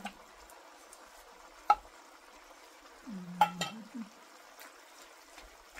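Wooden spatula stirring canned tuna into sliced bitter melon in a wok, over a faint frying sizzle. A few sharp knocks on the pan, the loudest a little under two seconds in and a cluster around three and a half seconds in.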